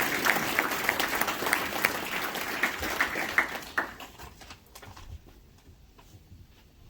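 Audience applauding, a dense run of hand claps that thins out and dies away about four to five seconds in.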